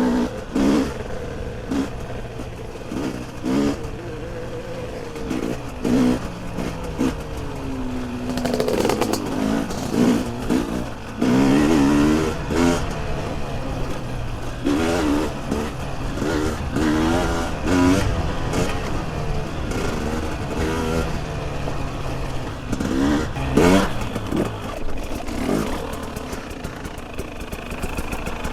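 Two-stroke KTM 300 EXC enduro engine running on the move, revving up and down again and again as the throttle is opened and closed, with some clatter. The bike is being run in, so the revs are kept moderate.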